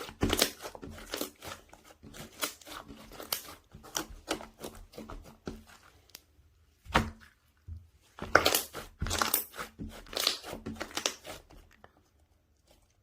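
Blueberry ice cream slime being squeezed and stretched by hand: dense crackling and popping, with a lull about halfway broken by a single loud pop, then another run of crackles before it goes quiet near the end.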